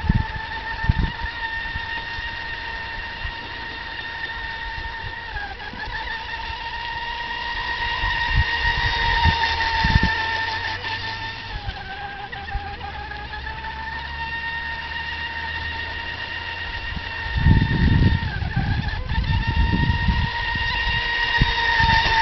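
Radio-controlled speedboat's motor running at high speed with a steady high-pitched whine, its pitch dipping briefly three times, about six, twelve and nineteen seconds in, as the throttle eases off through turns. Low rumbles of wind buffeting the microphone come and go, heaviest about eighteen seconds in.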